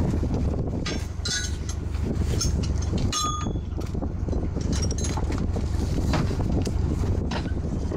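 Steady low rumble of a small fishing boat's engine with wind on the microphone, broken by several sharp metallic clinks and rattles of chain and rigging being handled on the deck, one of them ringing briefly about three seconds in.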